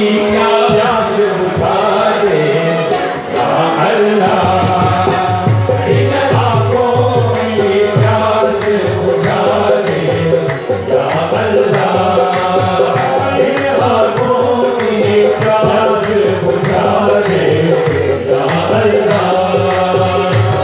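Qawwali music: harmoniums playing the melody with sung lines, joined about four seconds in by a steady hand-drum rhythm and hand clapping.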